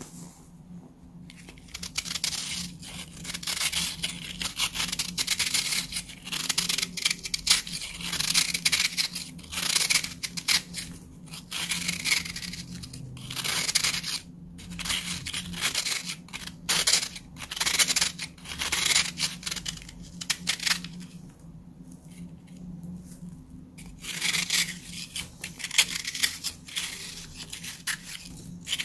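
Hands squeezing and crushing a compacted block of baking soda, giving a dry, crunchy crackle in repeated squeezes a second or two apart. The crunching eases off for a few seconds near the end, then starts again.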